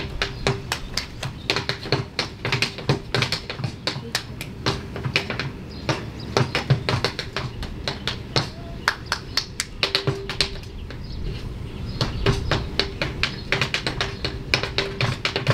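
Dance shoes tapping and stamping on a stage floor in quick, irregular runs of sharp clicks: a solo hard-shoe step dance, with a short lull just past the middle.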